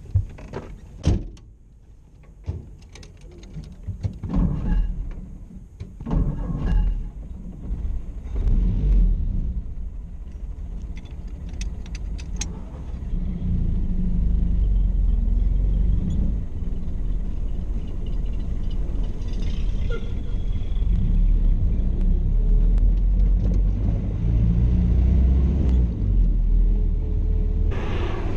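A series of knocks and clicks, then a car engine running with a steady low rumble from about halfway in, as of a car under way.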